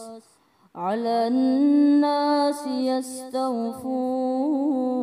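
A man's voice chanting Quranic recitation in maqam Kurd. After a brief pause for breath, the voice glides up into a new long, drawn-out phrase of held notes, with wavering ornamental turns near the end.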